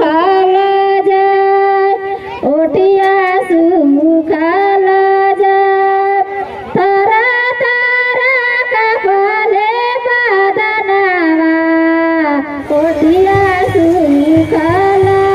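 A high voice sings a melody in long held notes that step slowly up and down. Near the end, a low drum beat and fuller accompaniment come in.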